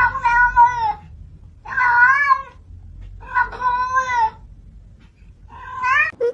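A domestic cat meowing: four drawn-out meows, each under a second long, that bend up and down in pitch.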